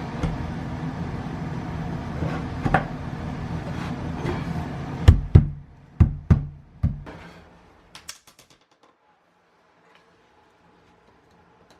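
A steady low rumble for about five seconds, then about five heavy knocks within two seconds, followed by a few faint clicks.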